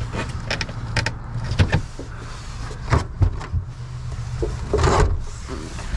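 Scattered knocks, clicks and rustling of gear being handled in a car's trunk, over a low steady hum.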